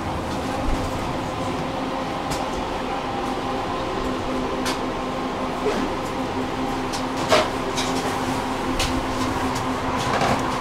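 Inside a tram under way: a steady running hum with a constant electrical tone, broken by a few sharp clicks and knocks, the loudest a little past the middle.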